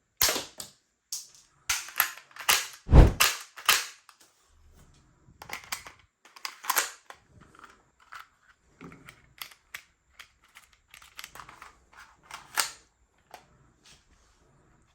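Sharp plastic clicks and snaps of a spring-powered toy gun being worked. A quick run of loud ones comes in the first four seconds, the loudest a heavier thump about three seconds in, then lighter scattered clicks.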